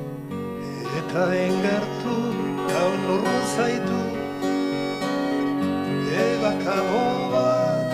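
Instrumental music from a small live acoustic band: acoustic guitars plucked and strummed, with accordion and keyboard, and a wavering melody line on top.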